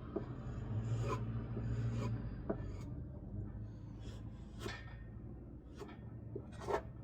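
Filing or scraping on wood by hand, with a steady low machine hum behind it and a few sharp clicks scattered through.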